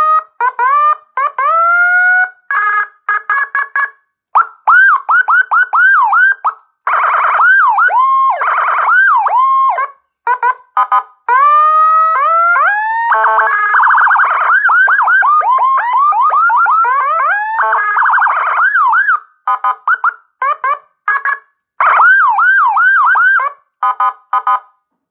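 CJB 200 electronic siren module, flashed with Whelen HHS lite tones, playing one siren pattern after another. The patterns are rising wail sweeps, fast up-and-down yelps and short chirps, switching every few seconds with brief gaps between them. It stops about a second before the end.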